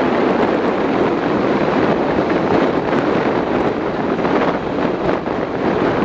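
Steady wind rush buffeting the microphone of a camera on a moving vehicle, over the rumble of traffic on the road.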